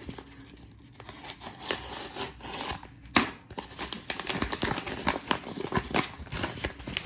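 A mail package being opened by hand: rustling and crinkling of the packaging with a quick run of sharp snips and tears, loudest about three seconds in.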